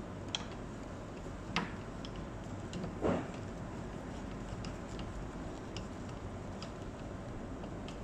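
Screwdriver turning a screw in a wine cabinet's metal upper door hinge: three sharp clicks in the first three seconds, then fainter irregular ticks, over a steady low hum.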